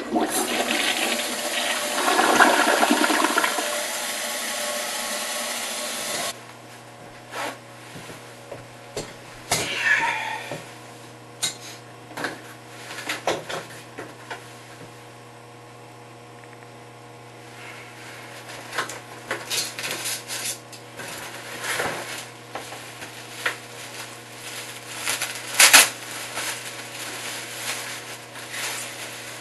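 Newly installed toilet flushing, a loud rush of water for about six seconds that cuts off suddenly. After that come scattered rustles, scrapes and light knocks of a cardboard box and plastic wrap being handled.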